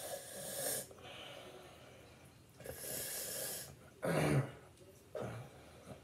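A person breathing out hard in four rushing bursts, the third a short voiced grunt, straining while working a hair pick through tangled hair.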